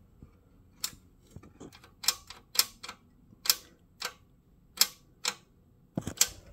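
Sharp metallic clicks and taps from metal parts being handled, about nine of them at uneven spacing.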